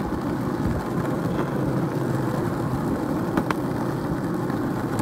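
Skateboard wheels rolling over rough, coarse asphalt, making a steady rumble.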